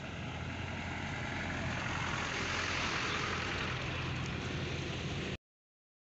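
Toyota Coaster minibus approaching on a loose gravel road: engine hum and tyre noise growing louder over the first few seconds. The sound cuts off suddenly near the end.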